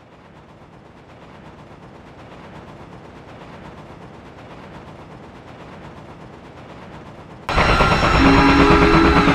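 Steam locomotive approaching: a rapid chuffing rattle that grows steadily louder. Near the end a much louder burst breaks in with a few steady held tones.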